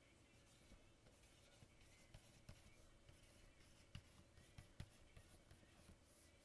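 Faint, irregular taps and scratches of a Wacom stylus nib on a Cintiq pen display as words are hand-lettered, over near-silent room tone.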